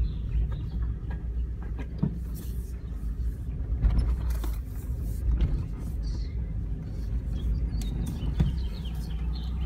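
Car heard from inside the cabin, a steady low rumble of engine and tyres as it drives slowly, with a few light knocks and clicks over it.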